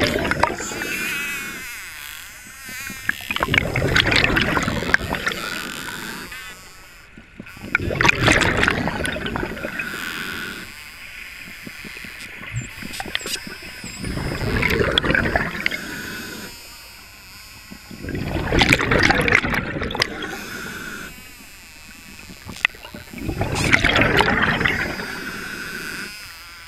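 Scuba diver's regulator breathing underwater: bursts of exhaled bubbles gurgling past the mask about every four to five seconds, with quieter pauses between.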